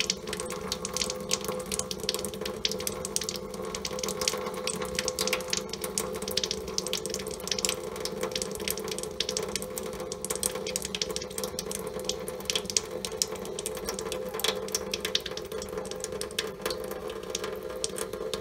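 Thin stream of water from a reverse-osmosis drinking-water faucet splashing steadily into a stainless-steel sink: the RO storage tank being flushed, its flow already reduced as the tank runs empty.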